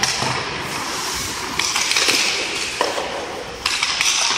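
Ice hockey play: skate blades scraping and hissing on the ice, with a few sharp clacks of sticks and puck, echoing in the rink.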